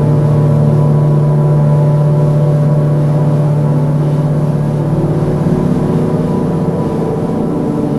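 Space ambient music: a steady low drone with several held tones layered above it, slowly shifting.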